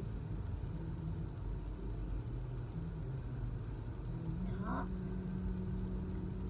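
Steady low background rumble, with faint pitched humming tones that step up and down and a short rising glide about five seconds in.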